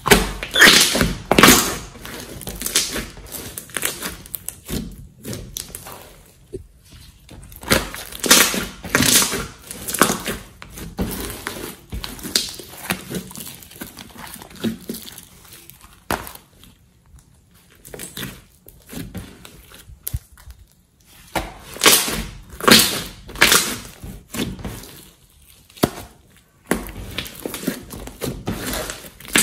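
Hands squeezing, poking and folding a large lump of slime: irregular bursts of squishing and clicking, with a quieter stretch about two-thirds of the way through.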